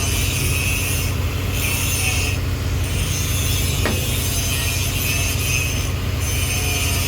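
Arc welding on a steel pipe joint: a steady crackling hiss that breaks off briefly a few times, over a constant low machine hum.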